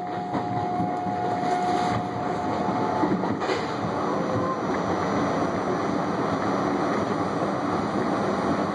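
R68A subway train running at speed: a steady rumble of wheels on rail. A steady tone rides over the rumble and drops out about three seconds in, and a faint click follows about half a second later.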